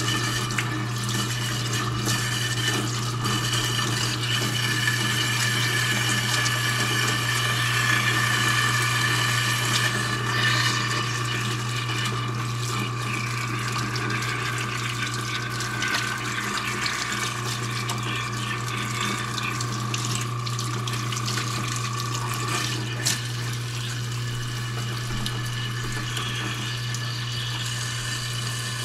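Kitchen faucet running a steady stream into a stainless steel sink while hands are rinsed under it, with a steady low hum underneath.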